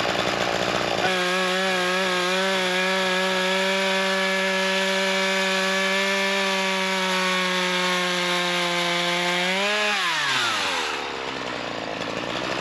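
Chainsaw ripping lengthwise along a log to mill a board, holding one steady high pitch at full throttle in the cut. About ten seconds in it revs up briefly, then drops away toward idle.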